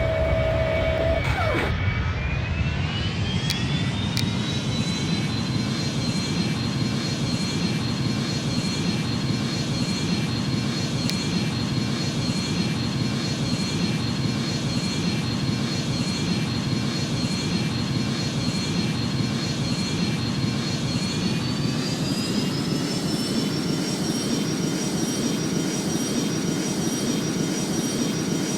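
Boeing 737's jet engines spooling up under a heavy steady rumble. A whine climbs over a few seconds early on, holds steady, then climbs again to a higher pitch about 21 seconds in as thrust is increased.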